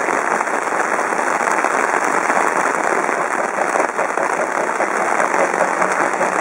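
Heavy rain falling steadily, a dense patter of drops on surfaces close by.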